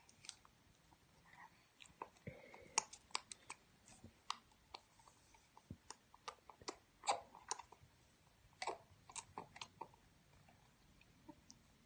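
A baby mouthing and handling a plastic Chobani drink bottle: faint, irregular clicks, taps and mouth smacks, a few a second, stopping about two seconds before the end.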